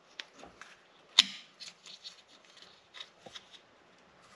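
Light clicks and rattles of a plastic support clip being fitted onto steel fuel injection lines by hand, with one louder snap about a second in.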